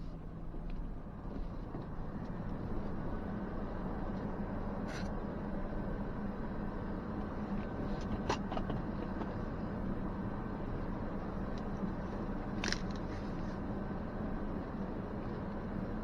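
2023 Ford Ranger Tremor's 2.3-litre EcoBoost four-cylinder engine running steadily at low speed as the truck crawls over a rocky dirt trail. A few sharp clicks or knocks cut through, about five, eight and thirteen seconds in.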